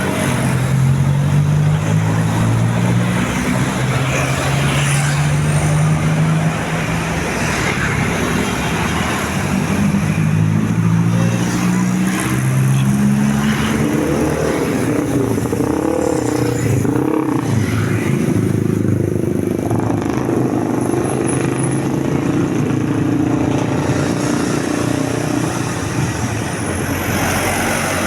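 Road traffic going by close at hand: the engines of passing vehicles, with a heavy engine running and rising in pitch in steps as it pulls away.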